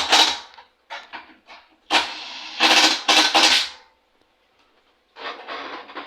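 Power driver, most likely an impact driver, rattling in several runs as it tightens the bolts holding a lawn mower engine's recoil starter housing: short runs, a longer one, a pause of about a second, then another run near the end.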